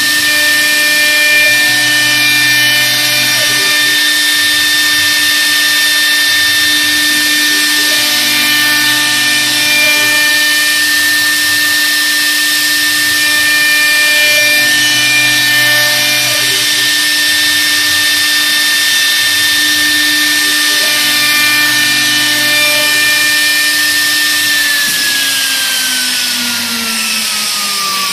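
CNC wood copy lathe's motor-driven cutter milling a spiral twist into a turning wooden baluster: a steady high whine over a dense noise of cutting. A lower hum swells and fades about every six or seven seconds, and over the last few seconds the whine glides down in pitch.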